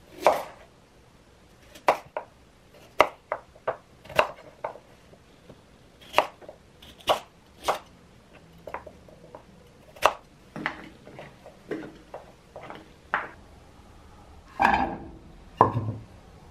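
Chef's knife chopping peeled sweet potatoes into chunks on a bamboo cutting board: irregular sharp chops of the blade through the flesh onto the wood, roughly one or two a second. Near the end comes a longer, heavier clatter and thump.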